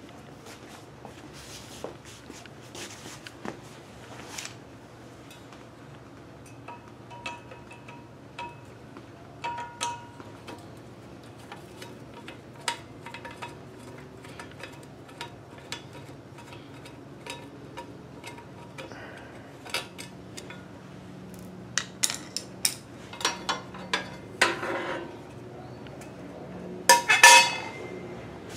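Screwdriver and loose metal parts clicking and clinking as the round metal pulley cover is unscrewed from an industrial sewing machine's electric motor. Near the end comes a louder metallic clatter, the metal cover being set down on a tile floor.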